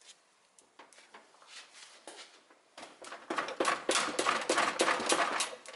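Pliers working the metal cover of a Volkswagen ignition coil held in a vise: a few faint clicks at first, then from about halfway a dense, loud run of metallic clicking and scraping as the cover is bent, stopping just before the end.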